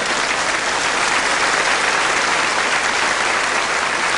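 A large audience applauding, a steady wash of clapping.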